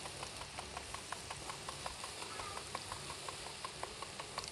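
Drops of gram-flour (besan) batter dripping through a perforated plate into hot oil as boondi. Each drop lands with a small sharp tick, several a second in an uneven patter, over a steady frying sizzle.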